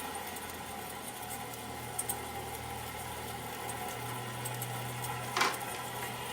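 Homemade 2x72 belt grinder driven by a treadmill motor, running steadily at its lower speed setting with the belt tracking fairly well. There is a brief squeak about five seconds in.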